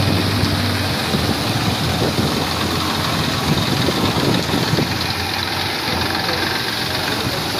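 An engine running at a low idle, its hum clearest in the first second or two, over a steady hiss of heavy rain and floodwater.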